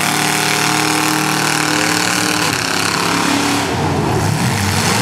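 Demolition derby cars' engines running loud with a steady drone. The pitch shifts a little past halfway as the engines change speed.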